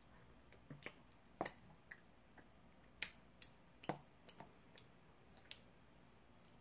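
Faint, irregular clicks and taps of eating ice cream with a metal spoon from a cardboard tub, about a dozen small sharp sounds spread over several seconds against near silence.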